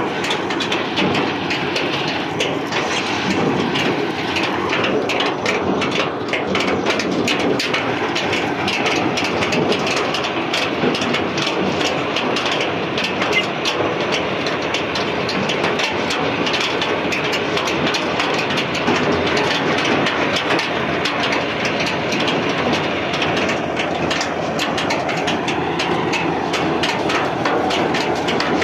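Farm tractor engine running steadily under way, with a constant rattling clatter of loose metal from the tractor's canopy frame and the load on it.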